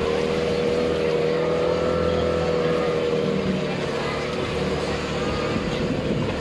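Motorboat engine running steadily under way, a constant droning tone.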